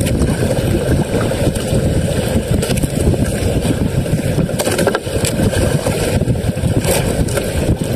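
Steady low rumbling noise on an outrigger boat at sea: wind on the microphone and choppy water against the hull, with a few faint knocks.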